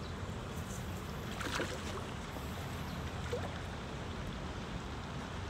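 Steady low outdoor background rumble with a faint hiss, and a faint click about a second and a half in.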